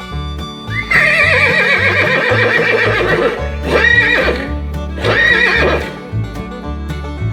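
A horse neighing: one long whinny with a quavering pitch, then two shorter whinnies, over background country-style music.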